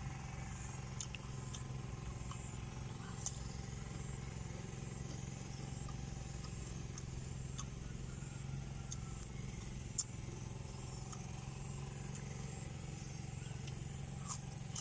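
A steady low engine-like drone, with a few short sharp clicks on top from eating raw jicama slices. The clicks come about three seconds in, near the middle and near the end.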